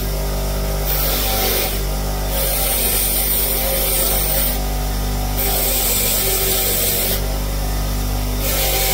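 Bench grinder running steadily while small metal spark-tester tips are held to its spinning wheel to clean and shine them. A rough rubbing hiss comes and goes, breaking off briefly several times over the motor's steady hum.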